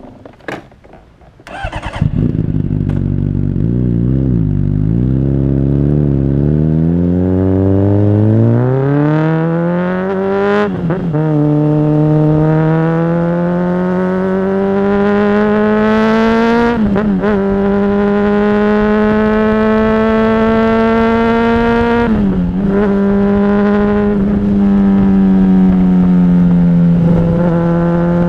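Honda CBR600RR's inline-four engine pulling away and accelerating, its pitch climbing through each gear with brief drops at three upshifts, then holding steady at cruise. A few light clicks come just before the engine gets loud.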